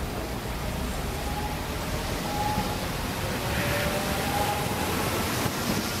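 Old Hiroshima Electric Railway streetcar no. 763, a former Osaka city tram, approaching along wet track: a low rumble under a hiss that grows steadily louder, with faint whining tones.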